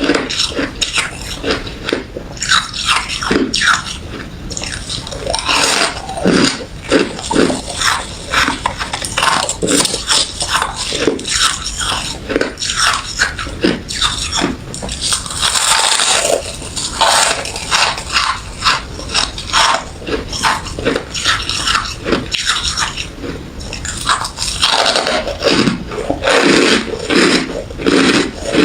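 Close-up chewing of refrozen crushed ice and frosty freezer ice: rapid, irregular, brittle crunches, one after another.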